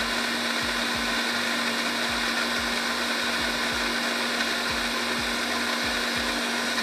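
Electric blender running at one steady speed, blending a tamarind and date chutney: a dense whir with a steady motor hum.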